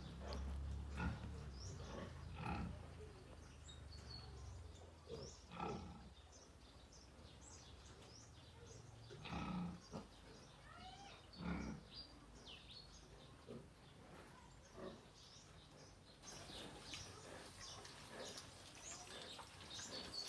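Piglets grunting and making short smacking sounds as they eat banana, in scattered bursts, the loudest about halfway through.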